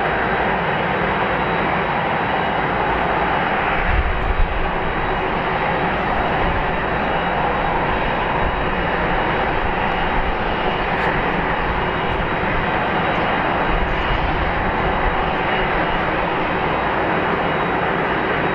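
Airbus A380's four Rolls-Royce Trent 900 turbofans running at low power as the airliner turns to line up on the runway: a steady jet rumble and hiss. A brief low thump about four seconds in.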